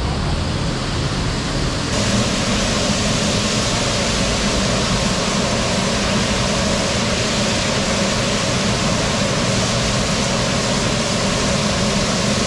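Chicken pieces deep-frying in a large wok of oil, a steady sizzle that grows louder and brighter about two seconds in.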